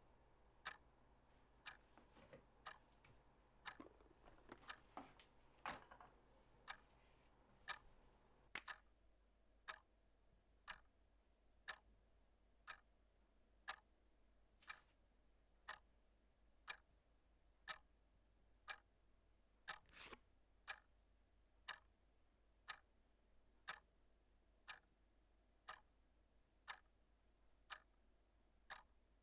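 Clock ticking faintly and evenly, about once a second. A few soft knocks and rustles sound in the first eight seconds, and one louder knock comes about twenty seconds in.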